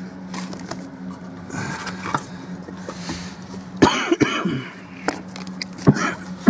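Knocks and scrapes of a wooden board being handled and set in place, with a few sharp knocks from about four seconds in, over a steady low hum.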